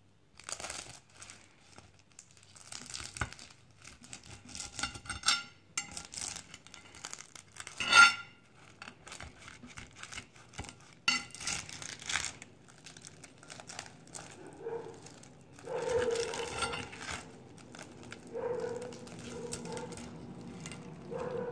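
Crisp baked warqa pastry crust of a chicken bastilla crackling and tearing as a knife cuts through it and a slice is lifted out, with the knife clicking against the plate, one sharp click about eight seconds in.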